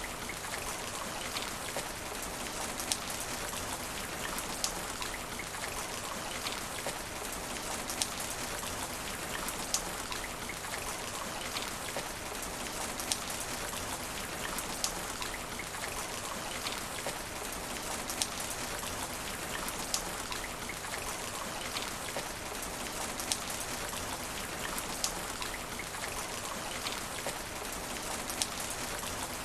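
Steady rain hitting asphalt, an even hiss of drops. A sharp tick stands out at a regular pace, about one every second and a half to two seconds.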